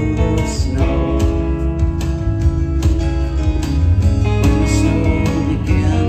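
Live band music led by a strummed acoustic guitar, playing steadily.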